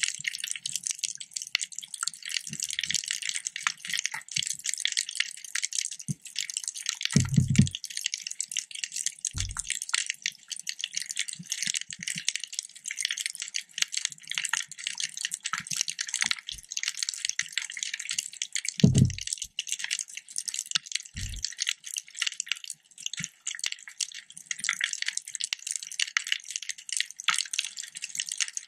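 Underwater reef crackle: a dense, steady crackling of countless tiny clicks, broken by a few short low thumps, the strongest about seven seconds in and again near nineteen seconds.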